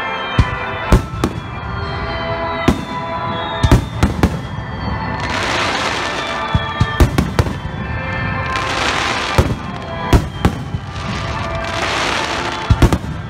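Fireworks display: aerial shells bursting with sharp booms at irregular intervals. Dense crackling from glittering shells comes about five seconds in and twice more before the end.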